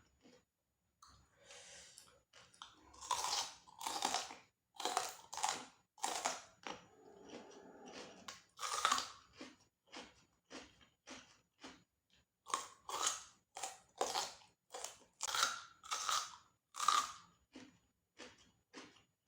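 Close-up mouth sounds of chewing crunchy deep-fried sea mole crabs (yutuk), with repeated crisp crunches at about two a second.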